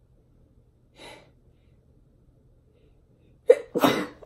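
A woman breathes out sharply about a second in. Near the end she suddenly breaks into a choked, tearful laugh, overcome with emotion.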